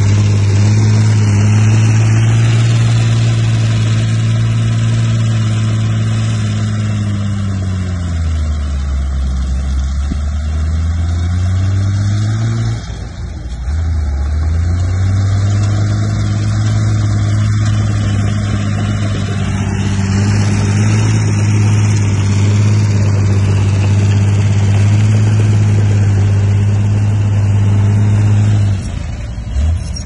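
Bulldozer diesel engine running steadily under work. Its pitch sags for a few seconds about a third of the way in, then climbs back. It drops briefly again near the end.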